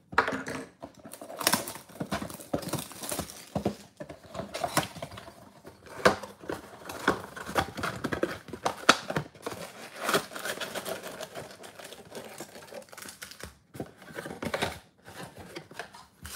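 A 2022 Bowman Mega Box, a cardboard trading-card box, being unwrapped and opened by hand. Its wrapping crinkles, and the cardboard scrapes and clicks with irregular sharp taps as the flaps are pulled open.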